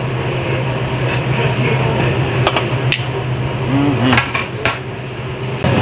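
Metal kitchen tongs clicking and knocking against a metal tray several times, the knocks bunched toward the second half, over a steady low hum.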